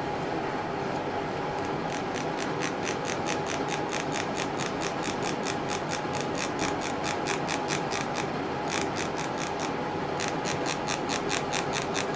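A small enamel sifter being rasped along its ridged wire handle, a fast, even run of ticks about five a second that shakes black vitreous enamel powder through the mesh onto copper. The ticking starts about two seconds in and breaks off briefly twice.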